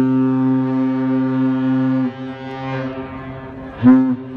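A cargo ship's deep air horn sounding one long blast of about two seconds, then a short blast near the end.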